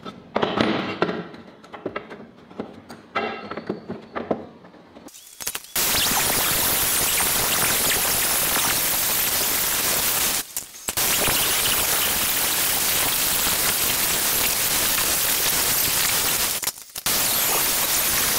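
A few seconds of clanks and knocks as a steel C-channel is handled and set in a bench vise. Then an angle grinder's cutting disc cuts through the steel with a loud, steady grinding scream, broken twice by a brief drop.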